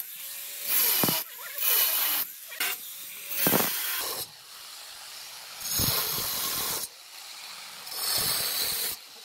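Handheld angle grinder with a cutting disc slicing into a granite slab. It runs steadily throughout, and the cutting hiss swells five times as the disc bites into the stone, each time for about half a second to a second.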